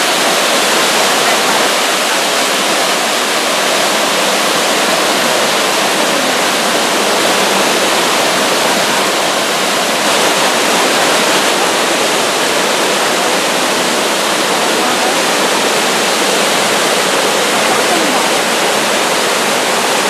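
Waterfall: a large volume of water cascading down over rocks into churning white water, making a loud, steady rush.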